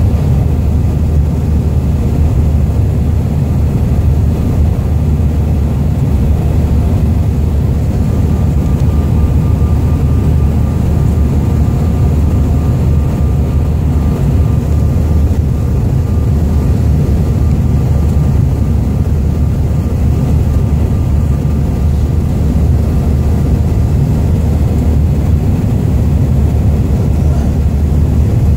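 Steady low rumble of a passenger airliner's engines and rushing air, heard from inside the cabin. A faint steady whine joins about a third of the way in.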